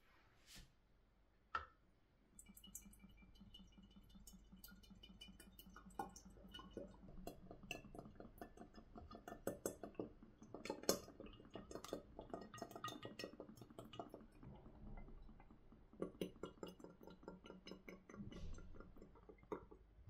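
Oil poured through a funnel into a glass bottle: a quick, irregular glugging and clinking against the glass that starts a couple of seconds in, is busiest around the middle and stops just before the end.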